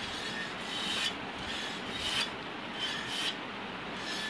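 Small hand air pump worked in quick strokes. Each stroke is a short rasping hiss of air, about seven in all at roughly one and a half a second.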